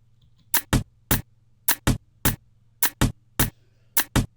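A programmed drum groove played from percussion slices cut out of a sample loop: sharp hits, each dropping in pitch, in a repeating figure of a quick pair and then a single hit, about once a second, starting about half a second in.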